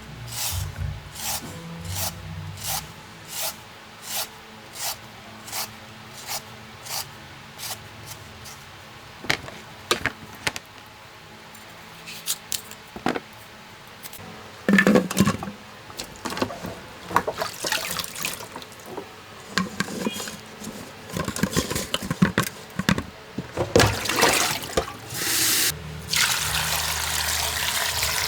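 Regular knocks, about one and a half a second, for the first eight seconds, then scattered clattering of handled objects, and water running or pouring near the end.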